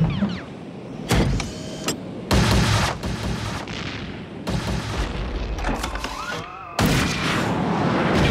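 Sci-fi cartoon battle sound effects: a series of loud blaster shots and explosions mixed with flying-machine engine noise, with a rising electronic whine about six seconds in.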